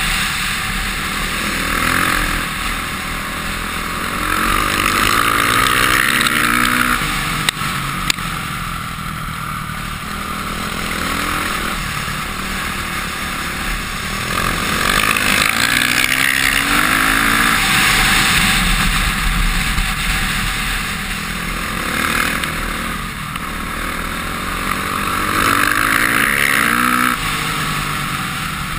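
Onboard sound of a Honda CRF450R's four-stroke single-cylinder engine running hard, its pitch climbing through gear changes three times and dropping back between the climbs. Two sharp knocks come about seven and a half and eight seconds in.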